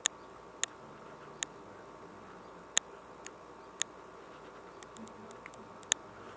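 Small, sharp, irregularly spaced clicks of fine jewelry pliers working a tiny lobster claw clasp while a new spring is fitted into it, about seven distinct clicks over a faint steady hiss.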